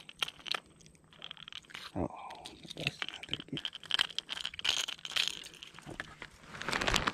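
Fishing pliers working the treble hooks of a topwater spook lure out of a hooked smallmouth bass: scattered small metallic clicks and crunchy rustles of handling, growing louder near the end.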